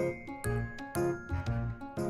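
Background music: a light, bouncy tune with bell-like notes over a steady beat of about two thumps a second.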